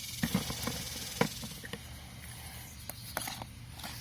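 Rustling and light clicks as items are handled and taken out of a box.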